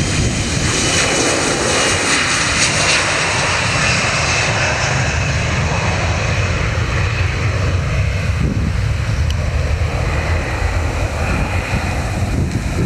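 Embraer 175 regional jet's two GE CF34-8E turbofans at takeoff power through the takeoff roll, liftoff and climb-out: loud, steady engine noise with a deep rumble. The high hiss is strongest in the first few seconds, then fades, leaving mostly the low rumble as the jet climbs away.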